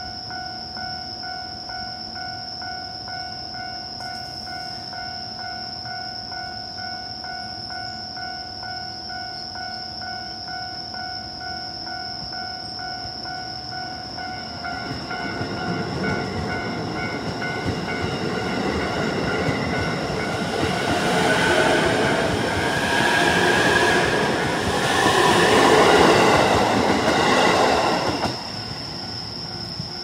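Japanese railway level crossing warning bell ringing steadily throughout. About halfway in, a JR East E531-series electric commuter train's running noise builds as it passes over the crossing: rumble and wheel noise, loudest near the end, then falling away suddenly so that only the bell remains.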